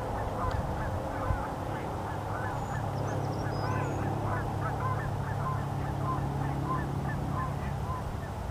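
A flock of geese honking continuously, many overlapping calls a second, with a few brief high chirps about three to four seconds in.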